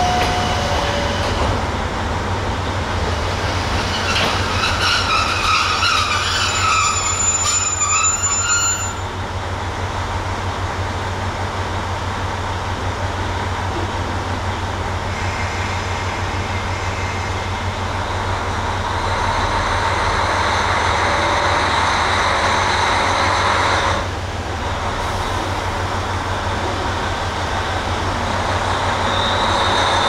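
KiHa 40 diesel railcar idling with a steady low engine hum, then throttling up about two-thirds of the way through and pulling away, its engine and running noise getting louder near the end.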